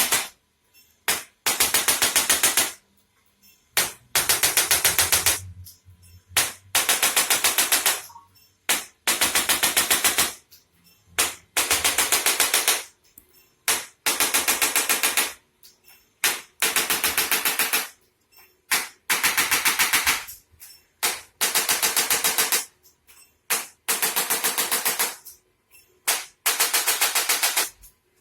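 Handheld electric percussion tool firing rapid trains of taps, about ten a second, in bursts of a second or so that repeat about every two seconds.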